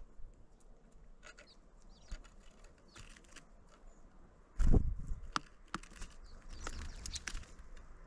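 Small birds at a winter feeder: sharp pecking and tapping clicks, with a loud wing flutter a little past halfway.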